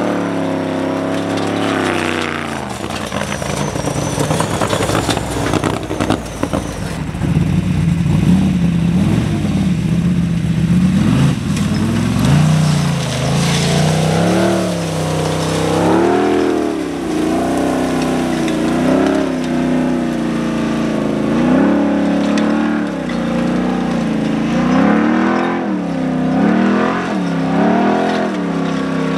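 Formula Offroad hill-climb buggy's high-powered engine revving hard up a steep slope, its pitch rising and falling over and over as the throttle is worked, roughly every second or two in the second half.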